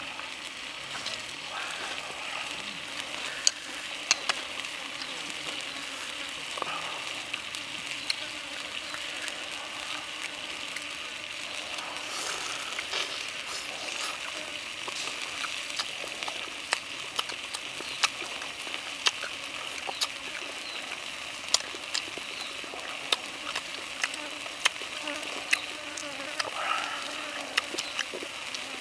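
A steady, high insect buzz from the surrounding forest. Over it come sharp clicks and smacks of close-up eating: chewing and tearing at grilled pork ribs. The clicks grow more frequent in the second half.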